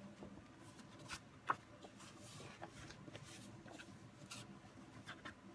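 Faint rustling and light taps of folded patterned paper being handled and pressed together by hand, with one sharper tap about a second and a half in.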